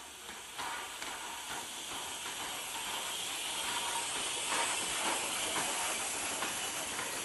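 Steam locomotive drawing into a station, a steady hiss of steam growing louder, with faint clicks.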